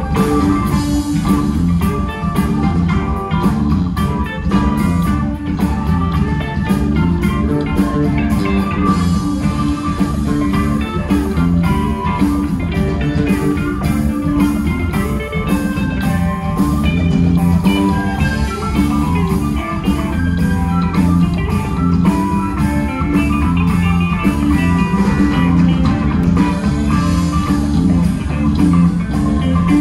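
A rock band playing a bluesy number, with guitar over drum kit and a steady beat.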